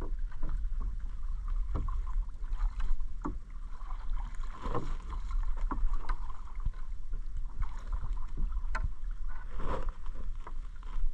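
Wet gill net being hauled by hand into a small outrigger boat: water splashing and dripping off the mesh, with irregular slaps and knocks against the hull over a steady low rumble.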